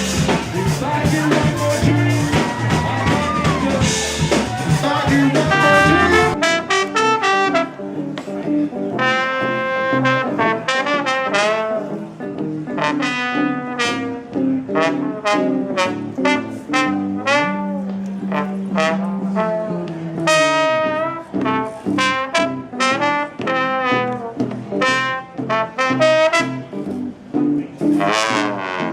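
Jazz music: a full band with drums and bass for about the first six seconds, then the drums drop out suddenly and brass horns carry the melody alone.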